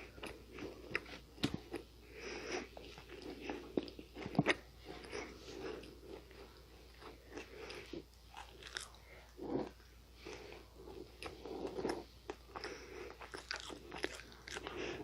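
Nunettine, a flaky sugar-glazed puff-pastry snack, being bitten and chewed close to the microphone: a run of crisp, irregular crunches and crackles over steady chewing.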